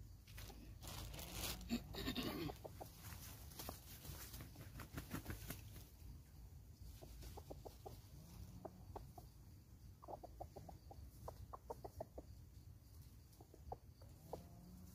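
Junglefowl clucking faintly in runs of short, quick notes. A louder rustle comes a second or two in.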